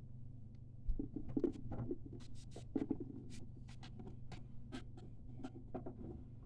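Homemade slime being squeezed and worked by hand: an irregular run of sticky clicks, pops and crackles starting about a second in and lasting some five seconds, over a low steady hum.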